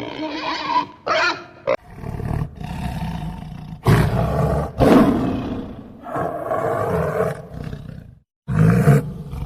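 Loud animal calls, several drawn-out and pitched, coming in separate edited clips that stop abruptly.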